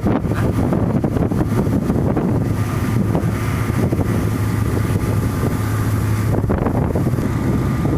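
A ship's fire-fighting jet system running: a steady low machinery hum under a loud, even rushing noise, with wind buffeting the microphone.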